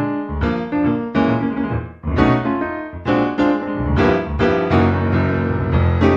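Piano music: notes and chords struck one after another, each fading before the next.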